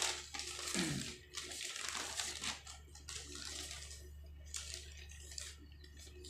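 Quiet room tone: a steady low hum with faint scattered rustling noises and a brief falling sound about a second in.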